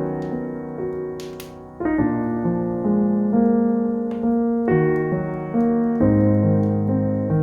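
Instrumental piano music: slow, sustained chords with a melody, changing chord every second or so.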